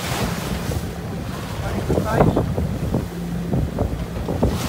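Wind buffeting the microphone over the rush and splash of a sailing yacht's bow wave pushing through choppy sea, with a brief louder gust near the end.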